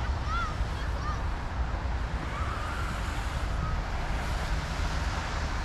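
Outdoor city ambience: a steady low rumble of distant traffic and wind on the microphone, with a few short bird chirps in the first few seconds.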